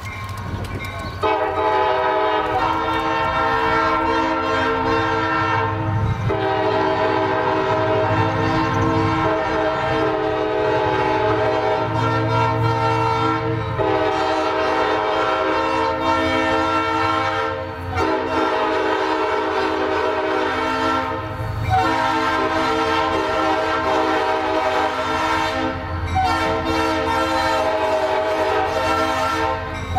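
A diesel locomotive's multi-chime air horn blows a string of long blasts with short breaks between them. It starts about a second in.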